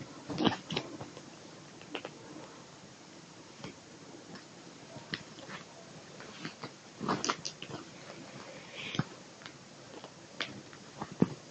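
Tabby kitten play-fighting with a sleeved arm: irregular rustles, scratches and soft knocks of its claws and teeth on the fabric, loudest about half a second in, around seven seconds and near the end.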